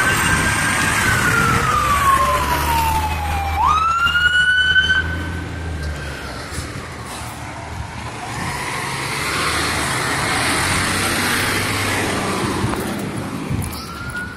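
Fire truck siren wailing: its tone falls slowly, then sweeps sharply back up about four seconds in, over the low rumble of a heavy truck engine that fades out a couple of seconds later. A rushing noise follows, and the siren starts rising again near the end.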